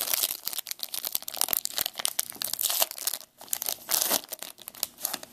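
Foil trading-card wrapper being torn open and crinkled by hand. The crackling is dense, with a brief lull a little over three seconds in and then a loud burst of crinkling.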